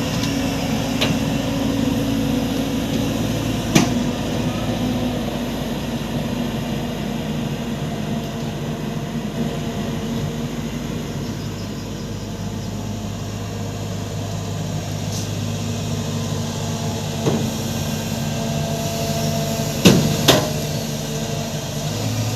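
Heavy vehicle engine running steadily, with a few short sharp knocks, once about four seconds in and twice close together near the end, as the genset is lowered.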